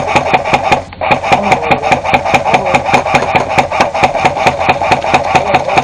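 Airsoft gun firing on full auto: two long bursts of rapid, evenly spaced shots with a brief break about a second in.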